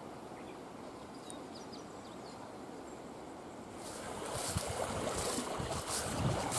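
Steady outdoor background with a few faint bird chirps. About four seconds in it gets louder with irregular rustling and swishing of tall grass and soft thuds of footsteps as someone walks through it.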